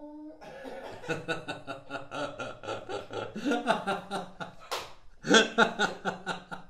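Laughing: snickering and chuckling in quick pulses, just after a rising siren-like tone ends about a third of a second in. A single sharp click about three-quarters of the way through.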